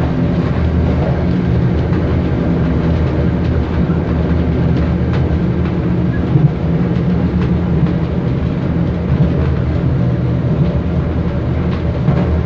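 Steady low drone of a moving diesel passenger train heard from inside the carriage: engine and running gear, with a few faint clicks from the rails.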